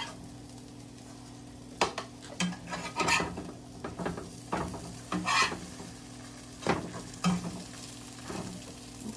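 Slices of bread frying in a pan on a gas stove, a light sizzle over a steady low hum. A metal spatula clicks and scrapes against the pan several times as the slices are turned.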